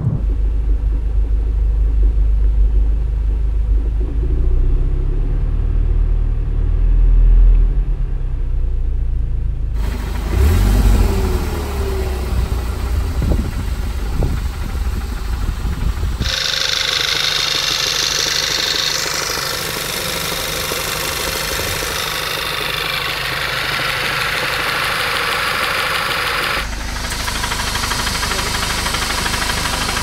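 Volkswagen 2.0 TSI turbocharged four-cylinder engine of a 2014 GTI running, with a knocking noise that the owner takes for slight rod knock. For the first ten seconds it is a deep drone from inside the cabin. The recording then cuts several times, and later stretches are brighter and hissier.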